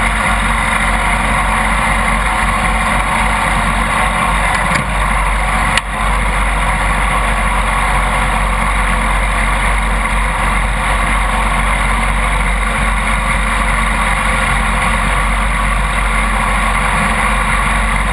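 Riding lawn mower's engine running steadily as the mower drives along, with one brief knock about six seconds in.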